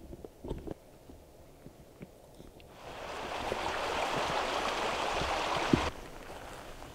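Steady rushing hiss, with a few footsteps of a hiker on a dirt trail; the hiss starts about three seconds in and cuts off abruptly about a second before the end.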